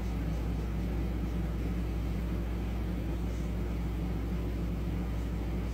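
Steady low hum with a faint hiss, even and unchanging throughout: constant background room noise.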